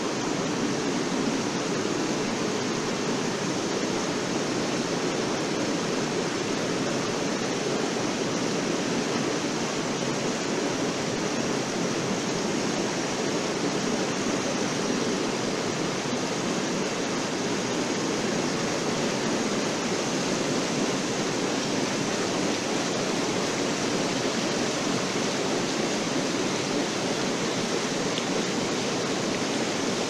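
Air-bubble onion washing machine running: water churning and bubbling hard in its stainless tank as air is blown through it, with rinse water spraying from the nozzle bars over the conveyor. A steady rushing noise that does not change.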